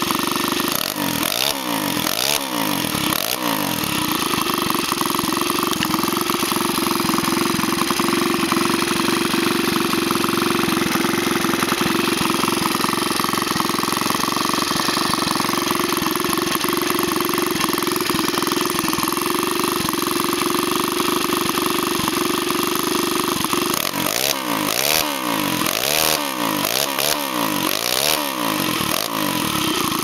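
Freshly rebuilt Huasheng 49cc four-stroke bicycle engine running steadily at a constant speed, exhausting through a short bent chrome pipe; it runs smoothly after its rebuild.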